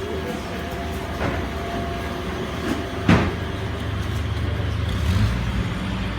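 A sharp knock like a vehicle door shutting about halfway through, then a vehicle engine's low rumble that swells about five seconds in and keeps running.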